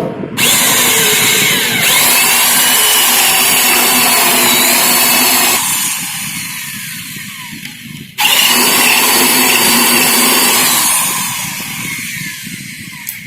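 Electric drill boring the lock hole through a wooden drawer front, in two runs: each starts suddenly, runs at full speed with a whine that dips and rises as the bit bites into the wood, then slows and fades.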